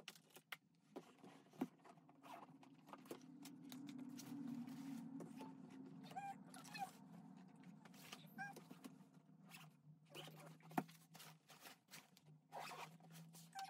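Faint rustling and small knocks of things being packed into a bag, over a faint low hum, with a few faint short chirps in the middle.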